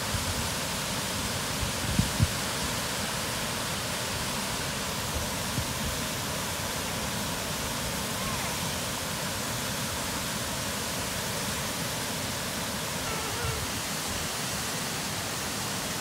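Water pouring steadily over a wide, low river waterfall into a pool: a constant even rush of noise. A brief low rumble about two seconds in.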